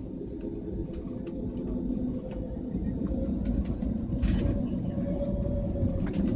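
Jet airliner cabin noise: a steady low rumble with a faint engine hum that rises slightly in pitch, growing gradually louder, with a few light rattles.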